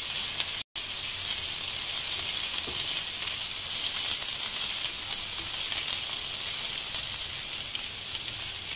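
Chopped onions and whole spices sizzling in hot oil in a frying pan, a steady frying hiss, as the onions are sautéed toward golden brown. The sound drops out for a split second under a second in.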